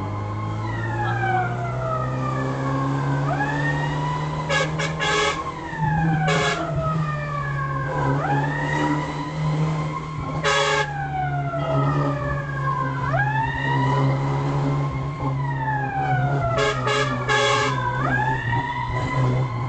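Fire-brigade vehicle siren wailing, rising quickly then falling slowly about every five seconds, with several short horn blasts, over a steady low engine hum.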